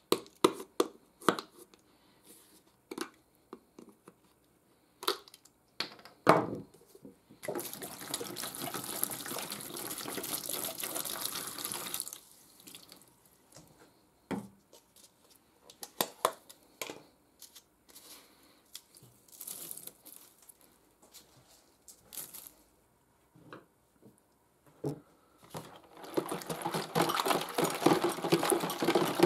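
Liquid poured from a plastic bottle into a plastic tub for about four seconds, filling a vinegar-and-salt rust-removal soak. Scattered knocks and clicks of the bottle and tub being handled come before and after, and near the end the tub is rocked so the liquid sloshes.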